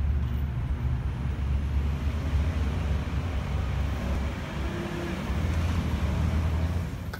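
Road traffic outside, a steady low rumble of passing vehicles that drops away near the end.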